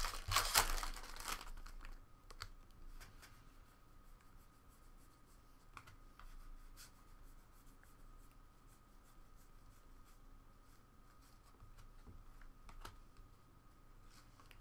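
Foil wrapper of a Bowman jumbo baseball card pack crinkling and tearing as it is pulled open, for about the first second and a half. Then faint clicks and slides of trading cards being flipped from one hand to the other.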